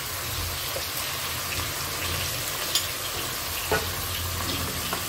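A thin white mixture is poured into a stainless steel pot of water and stirred with a metal spoon over a steady hiss, with a few light clinks of the spoon against the pot.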